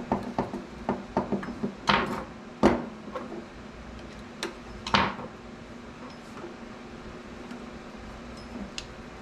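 Small metal parts clicking and clinking as washers and a binding post are fitted to a tattoo machine frame: a quick run of light clicks in the first couple of seconds, then two sharper knocks about two and a half and five seconds in, and a few faint ticks after.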